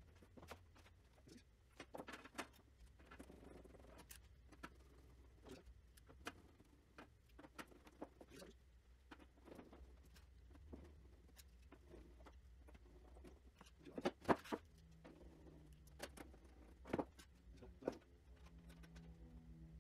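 Faint scattered clicks and taps from parts of a router table dust bucket being handled and screwed together with a hand screwdriver, with a couple of louder knocks about fourteen seconds in. A low steady hum sits underneath.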